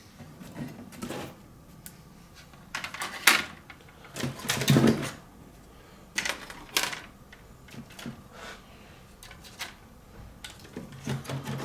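Scrap laptop motherboards clicking and clattering as they are handled and stacked onto a scale: irregular knocks and short rattles, the loudest a few seconds in.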